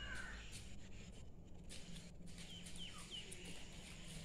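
Faint outdoor ambience with a low steady hum, broken by three quick high chirps about two and a half seconds in.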